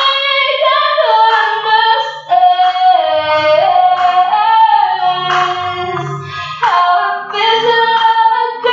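A woman singing a pop ballad, holding long notes and sliding between pitches in vocal runs.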